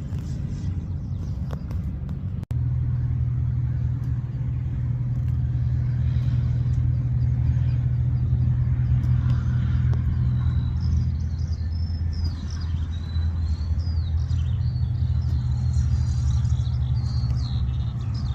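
Steady low rumble, louder after a brief dropout about two and a half seconds in, with birds chirping over it from about ten seconds in.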